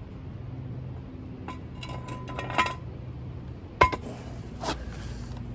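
A BMW differential housing knocking and clinking against a steel jack stand as it is set down and balanced upside down on it to drain the gear oil. There are a few separate metal knocks, each with a short ring, and the loudest is a sharp clank about four seconds in.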